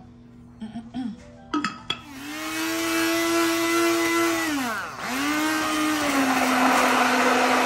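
Electric hand mixer beating eggs, oil and sugar for a cake batter, its motor starting up about two seconds in with a steady whine. Midway it slows almost to a stop, then speeds back up and keeps running. A few light clicks come before it starts.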